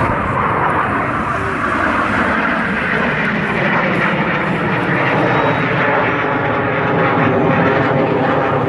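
Jet engines of two display jets flying past in close formation: continuous jet noise, with a layered whine that grows clearer after a few seconds.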